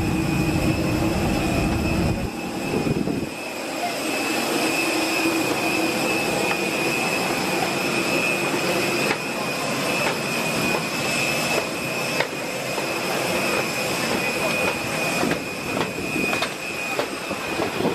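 Jet turbine whine on an airport apron: a steady high tone over a rushing hiss, with a low rumble that drops away about three seconds in and scattered light knocks later on.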